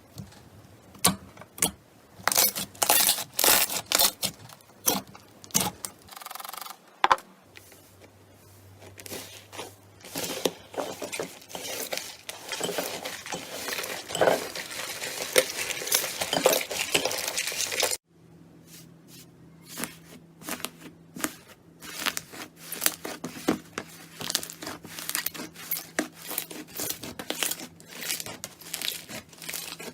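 Slime being pressed and stretched by hand: a run of sticky clicks and pops, then a denser crackling that builds and stops abruptly about eighteen seconds in, after which the clicking starts again.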